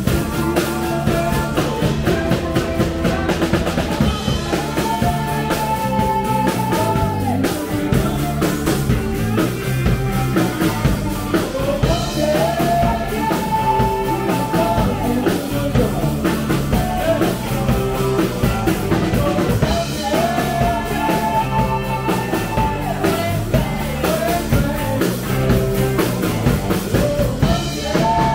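Rock band playing live: a woman's lead vocal over electric guitars, electric bass and a drum kit.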